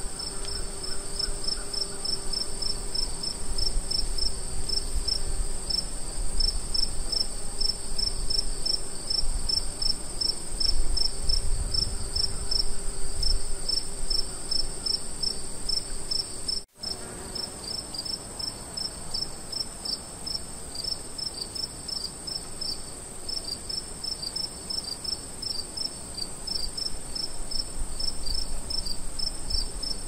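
Crickets chirping in chorus: a steady high trill with a row of rapid, pulsing chirps beneath it and a faint low rumble. The sound cuts out for an instant a little past halfway, then carries on slightly quieter.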